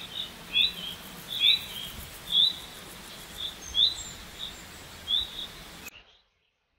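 A small bird chirping: short rising chirps, one or two a second, over a steady background hiss. The sound cuts off suddenly near the end.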